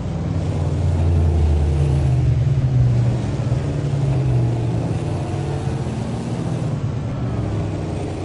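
Cummins N14 inline-six diesel growling through a 6-inch exhaust as the truck pulls away. The engine note climbs for the first three seconds or so, then slowly drops and gets a little quieter.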